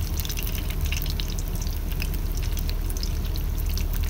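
Hot oil crackling and spattering around a whole tilapia deep-frying in a wok, a dense run of small pops over a steady low rumble.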